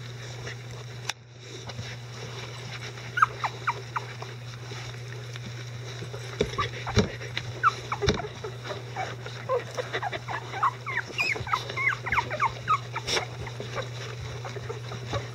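Eleven-day-old Icelandic Sheepdog puppies squeaking and whimpering in short, high cries. The cries are scattered at first and come thick and fast in the second half. A steady low hum runs underneath.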